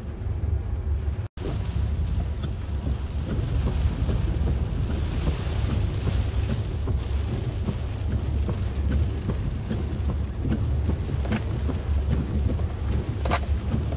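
Heavy tropical-storm rain on a moving car, heard from inside the cabin: a steady hiss of rain on the windshield and body over a low rumble of the car and wind. The sound cuts out for a moment about a second in.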